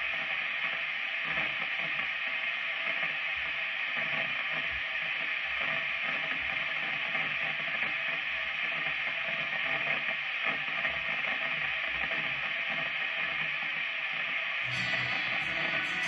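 Steady hiss from an idling high-gain electric guitar amplifier through its speaker cabinet, with faint small knocks. Near the end, electric guitar notes start to play.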